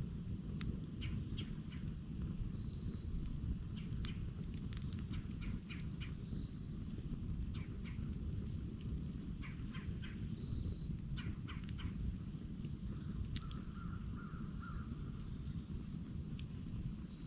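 Wood campfire crackling and popping, many sharp snaps over a steady low rumble. A short bird call comes about two-thirds of the way through.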